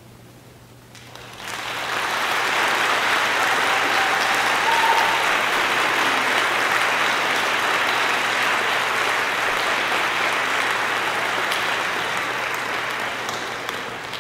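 Concert-hall audience applauding: the clapping starts about a second in, holds steady, and tapers off near the end.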